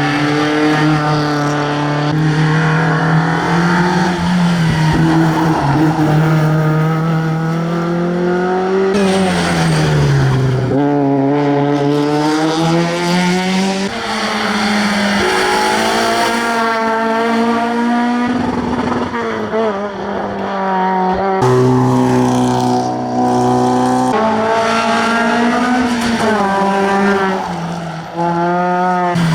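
Rally car engines at hard throttle on a tarmac stage, the pitch climbing and then dropping in sudden steps at the gear changes, with falling glides as cars brake and go by.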